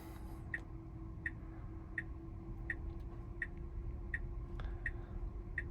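Tesla Model Y turn-signal indicator ticking steadily in the cabin, about one and a half ticks a second, over a faint steady hum, as the car pulls away from a parking space under Full Self-Driving.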